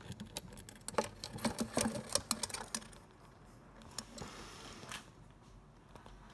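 A live mole scrabbling and scratching with its claws against a plastic container: a quick irregular run of clicks and scrapes for about three seconds, then a fainter scratchy rustle.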